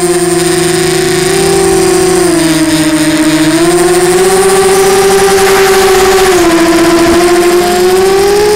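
Electric motor and propeller of an FPV model aircraft, heard from its onboard camera: a loud, steady whine whose pitch shifts with the throttle. The pitch drops about two seconds in and again about six and a half seconds in, climbing back after each.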